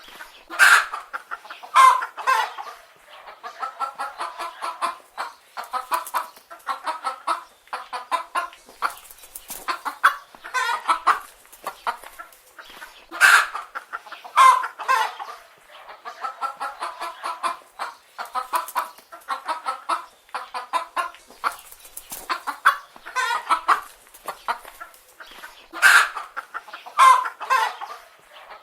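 Chicken hens clucking: runs of quick, short clucks, broken every few seconds by a louder, longer call.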